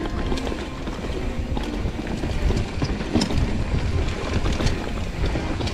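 Mountain bike rolling over a rough, rocky trail, with a low rumble of wind and jolting on the camera microphone and scattered clicks and rattles from the bike.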